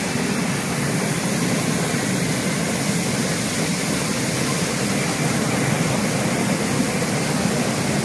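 Air bubble vegetable washing machine running: the water in its stainless steel tank churning and bubbling steadily as air is blown up through it.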